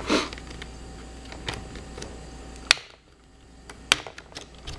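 Plastic screen bezel of an ASUS Eee PC netbook being pried off with a screwdriver: a string of sharp clicks and snaps as its plastic clips let go, the loudest about two-thirds of the way in and several quick ones near the end.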